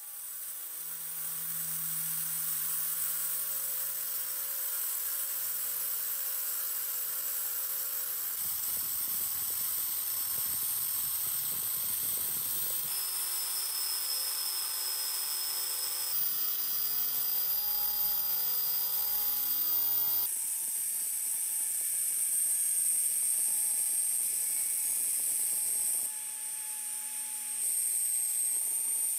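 Angle grinder spinning a polishing wheel against a steel knife blade: a steady high motor whine and hiss that shifts abruptly in pitch and tone several times.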